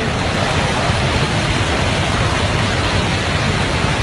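Storm noise: a steady, loud roar of wind and rain, with the wind rumbling on the microphone.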